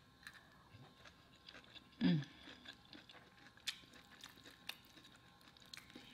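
Close-miked chewing of a mouthful of green beans, with small wet mouth clicks and occasional sharp taps of a fork on the plate. A short low hum about two seconds in.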